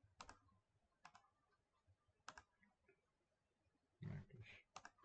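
A handful of sharp, separate computer mouse clicks, spaced a second or so apart, placing the points of a circle in drawing software. A short low voiced sound comes near the end.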